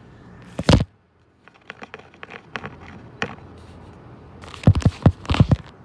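Handling noise from the recording phone: a loud bump, a string of light taps and rubs, then a cluster of louder knocks near the end.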